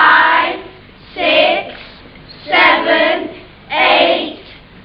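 Children's voices singing short notes together, one about every second and a quarter, four in all.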